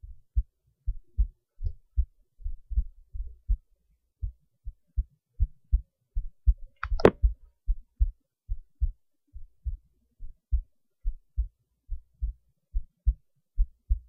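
Heartbeat, a steady rhythm of paired low thumps (lub-dub). A single sharp knock about halfway through stands out above the beat.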